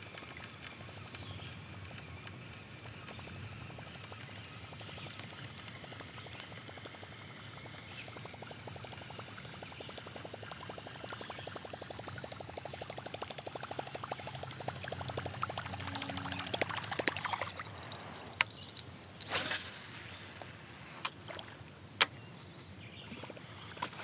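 A Daiwa Zillion baitcasting reel is cranked in a fast, fine ticking whir that grows louder over several seconds as the topwater lure is wound in, over faint water lapping at the kayak. Near the end come a couple of sharp clicks and a short swishing rush.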